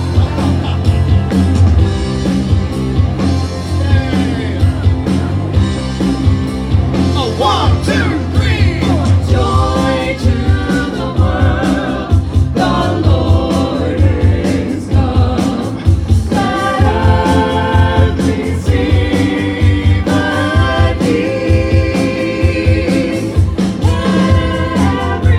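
Upbeat music with singing over a steady beat and a strong bass; the voices hold long notes through the second half.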